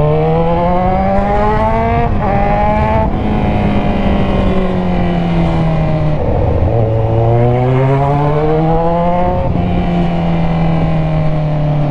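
Kawasaki Z1000's inline-four engine through an aftermarket Orion muffler, pulling up through the gears. The revs climb and drop at a shift about two seconds in, then fall away as the throttle eases. They climb again to another shift near the end.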